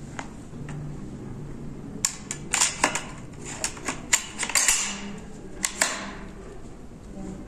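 A quick run of sharp clicks and clacks of hard parts being handled on a Kral A12 semi-automatic shotgun, starting about two seconds in and dying away after about four seconds.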